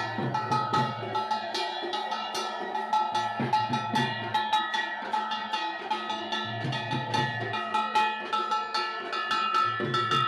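Music with drums and fast, dense metallic percussion strikes over steady held tones, with low drum thuds coming in bursts.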